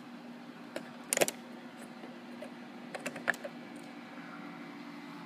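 A few sharp clicks and taps over a steady low hum: one loud cluster about a second in, and a few more around three seconds in.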